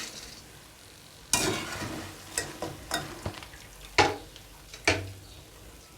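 Boondi sizzling in hot oil as a spoon stirs and scoops them, with a burst of frying about a second in and then about five short, sharp scrapes of the spoon against the pan.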